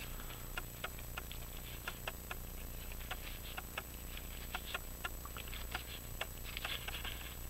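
Light, irregular clicks and taps as a brass clock mainspring barrel and its cap are handled with pliers, with a short rustle of paper towel near the end.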